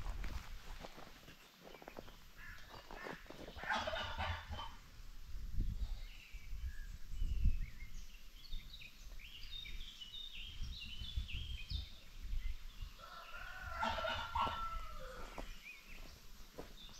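Free-ranging chickens calling: one call about three and a half seconds in and a longer rooster crow near the end, with quick high chirps in between.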